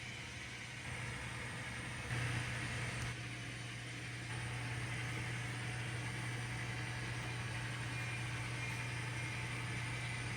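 N scale model train locomotive running on the layout track: a steady low hum with a noisy whir above it, briefly louder about two seconds in.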